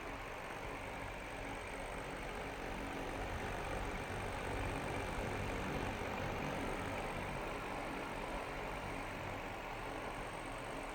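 Small electric motor running steadily with a continuous whir and hum, swelling slightly in the middle.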